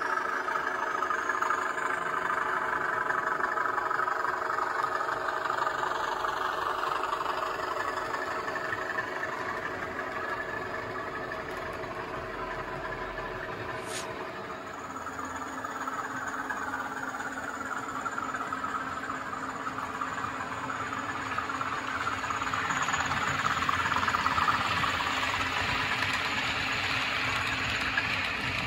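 Sound-fitted OO gauge model of a pair of British Rail Class 20 diesels, the decoder playing their English Electric engines under power through its small speaker, over the model's wheels running on the track. About halfway through the sound changes abruptly to another pass, which grows louder near the end as the locomotives approach.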